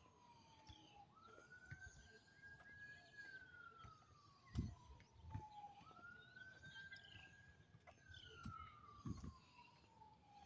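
Faint emergency vehicle siren wailing in slow cycles: a quick rise to a held high note, then a long slow fall, repeating about every three and a half seconds. There are also a couple of low thumps, about halfway through and near the end.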